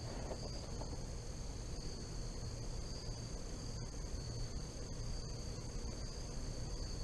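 Steady insect chorus, crickets or similar, a continuous high-pitched drone held on two pitches, over a low background rumble.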